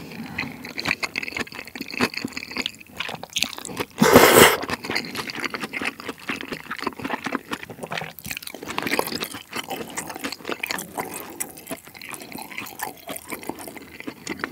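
Close-miked wet eating sounds: slurping and chewing saucy mala xiang guo noodles and meat, with lip smacks and small wet clicks throughout and one loud slurp about four seconds in.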